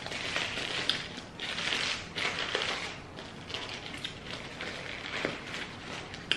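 Paper food wrapper rustling and crinkling in irregular bursts as it is peeled back from a grilled chicken wrap by hand.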